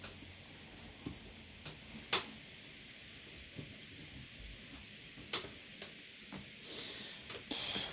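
Light clicks and knocks of chair parts and an Allen key being handled during assembly, with sharper clicks about two seconds and five seconds in, and a short rustle near the end.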